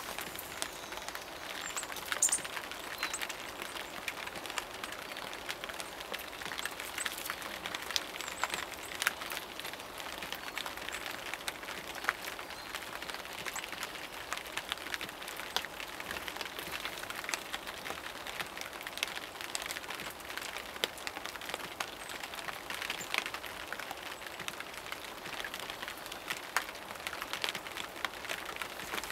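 Steady rain falling, with many individual drops tapping close by in quick, irregular succession.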